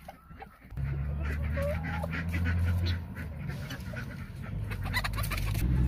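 A steady low droning hum, weakening about three seconds in and returning near the end, with light rustling and clicking over it.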